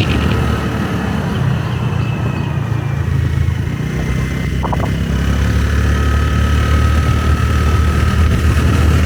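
Motorbike engine running steadily while riding: a continuous low drone, with a short click about halfway through.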